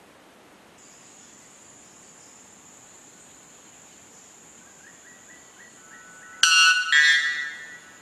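White bellbird giving its Type 2 song: a few faint short notes, then two very loud ringing notes near the end, the second one longer.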